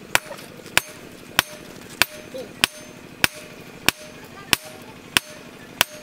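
Hand hammer striking a red-hot steel knife blank on an anvil, about ten sharp, evenly paced blows at roughly one and a half a second.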